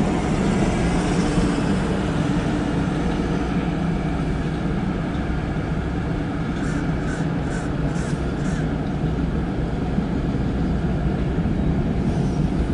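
Empty autorack freight cars rolling past with a steady rumble of steel wheels on rail. About seven seconds in comes a short run of evenly spaced wheel clacks, roughly two a second.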